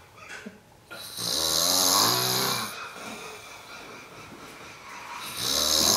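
A man snoring in his sleep: two long snores about four seconds apart, with quieter breathing between them.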